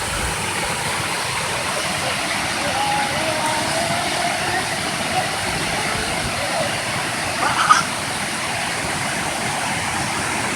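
A small waterfall's water rushing steadily, with a brief faint voice-like sound about three-quarters of the way through.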